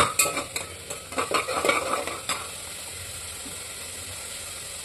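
A steel spoon stirring masala frying in oil in an aluminium pressure cooker, scraping and knocking against the pot. About two seconds in the stirring stops and only a steady sizzle of the frying masala remains.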